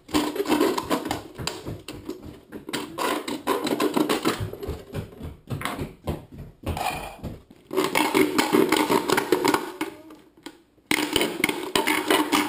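A knife sawing through the thin plastic of 2-liter pop bottles, scratchy and crackling, in spells with a few short pauses.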